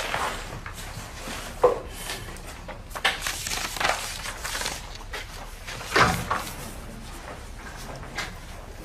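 Scattered handling noises in a small room: paper rustling and light knocks of a person settling at a table, with one louder thump about six seconds in.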